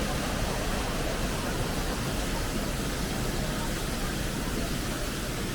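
A small waterfall's water rushing, a steady, even roar.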